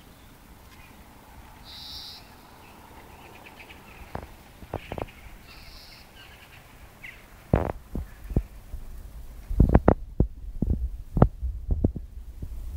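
Faint bird calls, a few short high notes and chirps, over quiet outdoor air. From about seven and a half seconds in, a run of loud low thumps and rumbles hits the microphone.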